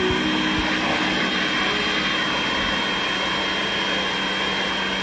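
Pressure washer running steadily, a continuous hiss of spray over the machine's steady hum.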